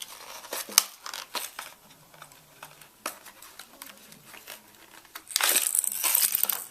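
Lure packaging being handled and opened by hand: scattered clicks and soft crinkling, then about a second and a half of loud crinkling and tearing near the end.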